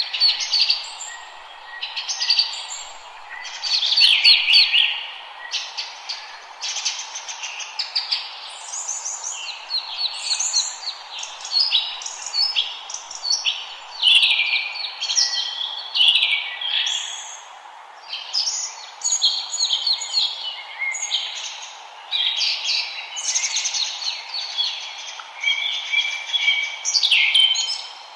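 Several songbirds singing at once, a dense chorus of chirps, trills and rapid repeated notes, over a steady background hiss.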